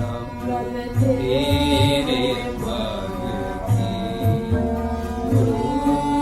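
Indian classical music in Raag Todi: a gliding melodic line over a steady drone, with low drum strokes.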